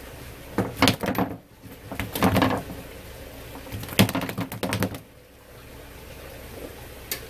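Live black sea bream thrashing in a landing net and onto a plastic cutting board: three bursts of rapid slaps and clatter, then a single knock near the end.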